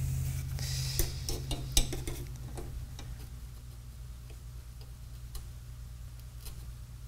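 Light, scattered clicks and taps of a soldering iron and pliers against a metal radio chassis while a wire joint is desoldered, mostly in the first three seconds. A steady low hum lies underneath.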